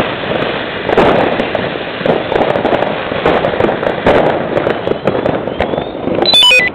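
Firework fountain hissing and crackling as it sprays sparks, with the bangs and crackles of other New Year's fireworks all around. A faint rising whistle comes shortly before the end, followed by a short falling run of beeps.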